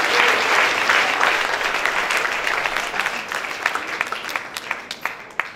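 Audience applauding: a dense round of clapping that thins to scattered single claps and dies out near the end.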